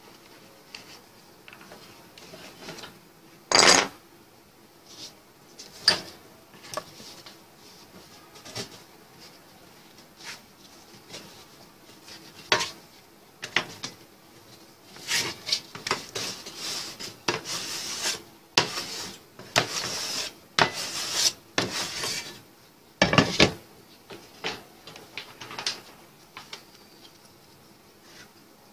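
Thin sheet-metal strip being handled and bent over a wooden workbench: a few sharp metallic knocks and clanks, with a run of scraping and rubbing of metal against the wood in the middle.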